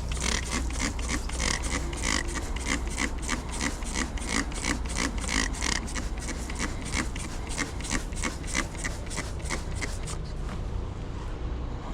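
Rapid back-and-forth rasping strokes of a hand tool rubbing over a surface, about four to five a second, stopping about ten seconds in, over a steady low hum.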